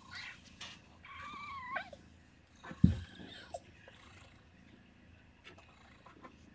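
Day-old kittens mewing in short, high, wavering cries, one drawn out for nearly a second. A sharp thump comes about three seconds in.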